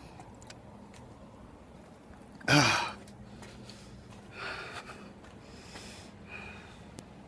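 A person's voice: one short, loud vocal burst about two and a half seconds in, falling in pitch, followed by two fainter breathy sounds.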